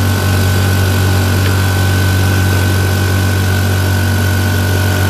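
Parkside PKO 270 A4 24-litre oil-lubricated piston air compressor running loud and steady, its motor and pump giving a deep hum with a high whine on top. Its first run after fitting the oil plug and air filter, likened to a jackhammer.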